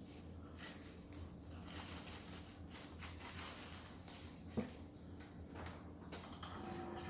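Faint scattered clicks and rustles of something being handled, with one sharper knock about four and a half seconds in, over a low steady hum.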